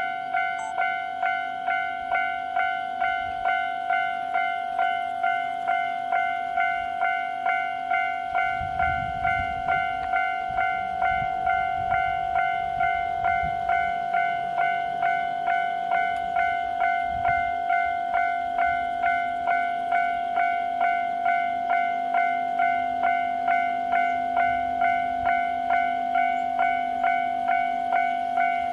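Japanese level-crossing warning bell ringing a steady repeated ding, about one and a half strikes a second, with a low rumble rising and fading about a third of the way through.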